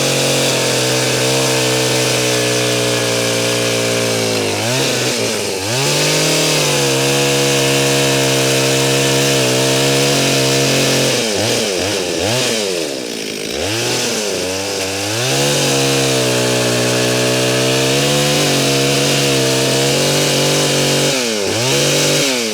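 Two-stroke chainsaw running at high revs, cutting into a tree trunk for the flat bottom cut of a felling notch. The revs dip and climb back a few times: about five seconds in, again around twelve to fifteen seconds, and near the end.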